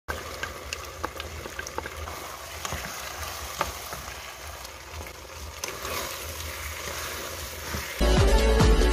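Beef, broccoli and onion sizzling in a pan while a wooden spatula stirs them, with light irregular clicks of the spatula against the pan. Near the end it cuts suddenly to loud electronic music.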